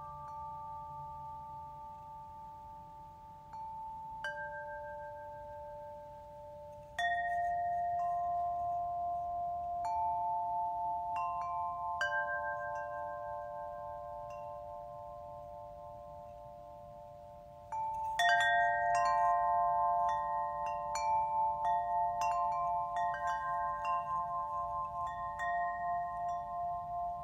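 Small chime bells ringing: sparse struck notes that hang and slowly fade. A dense flurry of strikes comes about two-thirds of the way in, the loudest part, after which several tones ring together with a slow wavering.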